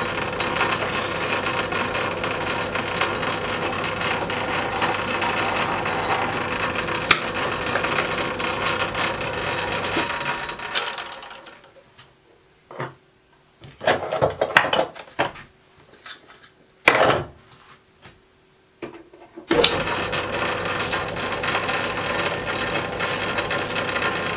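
Small metal-turning lathe running steadily while a drill in the tailstock bores the centre of a cast wheel. About ten seconds in, the motor is switched off and the noise dies away, leaving a few sharp metal clicks and knocks. Near the end the lathe starts up again and runs steadily.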